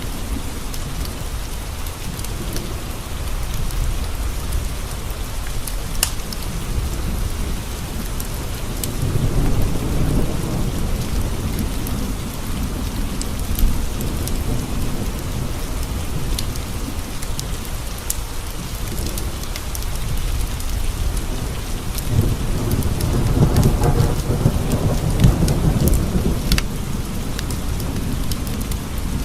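Steady rain with two long, low rolls of thunder, one about nine seconds in and another starting around two-thirds of the way through, with scattered sharp crackles over the top.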